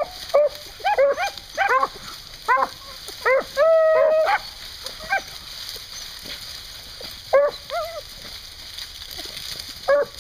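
Pack of beagles giving tongue as they work through the brush on a hunt: runs of short, high barks with one longer drawn-out bawl about four seconds in, then only scattered barks in the second half.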